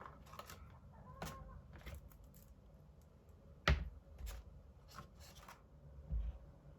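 Packaging being handled during an unboxing: rustling and scattered small clicks. There is one sharp knock about three and a half seconds in and a dull thump near the end.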